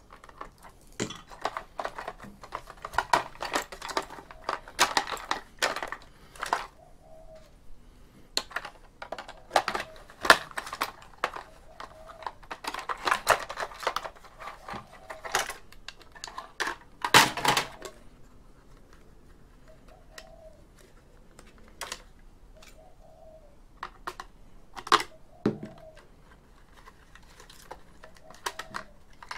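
Plastic parts of a robotic vacuum cleaner being pried and pulled apart with a screwdriver: quick runs of clicks, snaps and rattles, dense through the first half and only scattered clicks later on.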